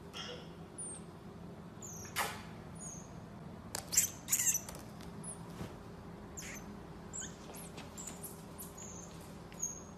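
Common marmoset giving short, very high-pitched chirps and squeaks, several falling in pitch, scattered throughout. A few sharp knocks and scuffs are mixed in, the loudest about two and four seconds in.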